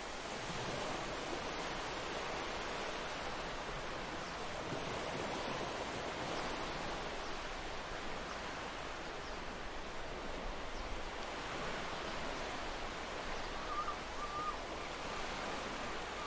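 Steady rushing noise of sea surf and wind, with a faint wavering whistle briefly near the end.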